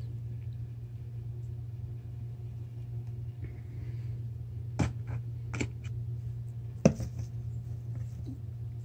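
A cat batting at a dangled string toy by a fabric cat box: a few short taps and knocks, the loudest about seven seconds in, over a steady low hum.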